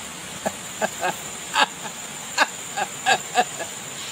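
A woman's voice sobbing and wailing in short, broken cries, about eight of them with wavering pitch, over a faint steady high-pitched whine.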